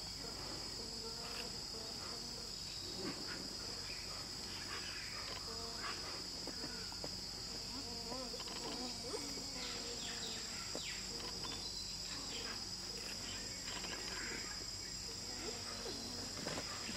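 Steady high-pitched drone of rainforest insects, with many short squeaks, whines and hum-like calls from giant otters scattered throughout.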